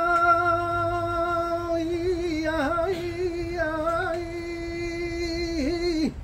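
A saeta, the unaccompanied flamenco song of Holy Week, sung by a solo voice. One long held note is drawn out with melismatic turns around the middle and breaks off near the end.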